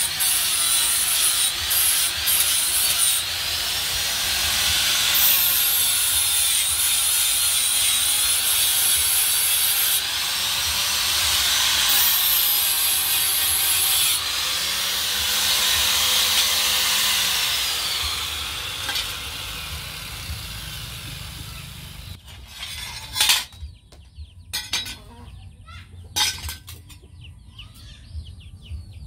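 Electric angle grinder sharpening steel knife blades, a loud grinding whine whose pitch sags and recovers as the disc is pressed onto the steel. About twenty seconds in the grinder winds down, and a few sharp metallic clinks follow as steel knives are set down.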